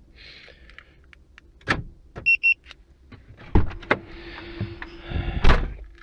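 A StarLine A9 car alarm gives two short electronic beeps about two seconds in, the system answering its newly paired key fob. Around them come several sharp clicks and thunks, and a hissing rush near the end.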